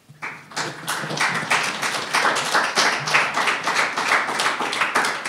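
A small audience clapping, starting a moment in and quickly building to steady applause at the end of a spoken performance.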